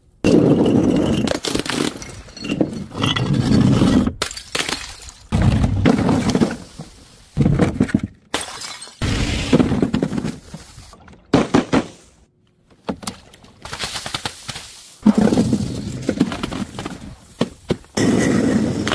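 Glass bottles and other objects being smashed and crushed, a run of loud crunching and shattering. It comes in several separate stretches that start and stop abruptly, with a brief near-silent gap about two-thirds of the way through.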